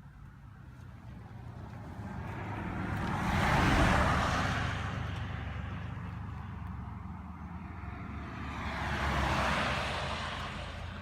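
Two vehicles passing by one after the other, each swelling in loudness and then fading, over a steady low rumble.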